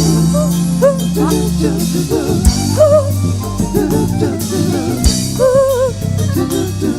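Live band playing an instrumental passage: drum kit, steady bass notes and a wavering lead melody line.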